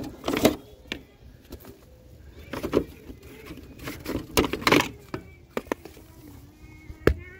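Plastic grass-catcher bins and the metal frame of a lawn tractor's bagger being handled: several scattered knocks and rattles, the sharpest a single knock near the end.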